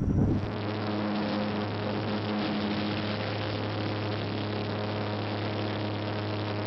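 Steady drone of a propeller airplane's engines heard from inside the cabin: a constant low hum with a few steady tones above it and rushing noise. It takes over from a louder, rougher sound a fraction of a second in.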